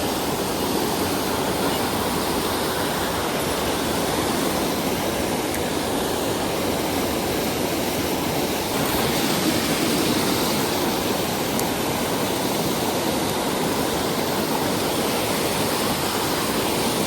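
Steady rushing water of a mountain stream, growing a little louder about nine seconds in.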